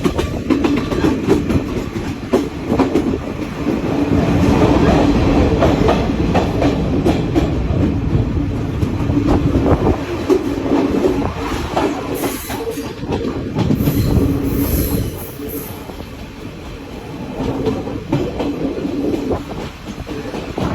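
Passenger train running along the track: a steady rumble and hum from the wheels and carriages, with clicking over the rail joints. Brief high-pitched squeals come about two-thirds of the way in.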